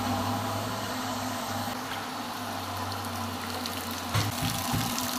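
Electric stainless-steel water booster pump running with a steady hum while water sprays and splashes from an open pipe. A few low thumps come just after four seconds.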